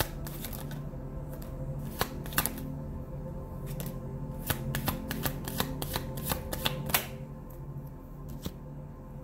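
A deck of cards being shuffled by hand: a run of sharp card clicks and snaps, busiest through the middle and thinning out near the end, over soft background music.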